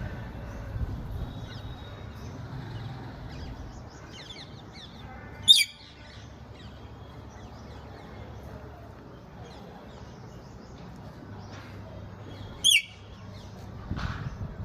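Parrot giving two short, loud, high calls about seven seconds apart, with a few faint chirps just before the first.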